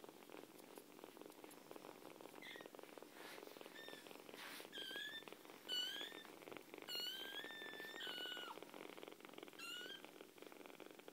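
Kittens purring steadily, a fast rasping pulse, with about six short high-pitched kitten mews from a couple of seconds in, the longest near the middle.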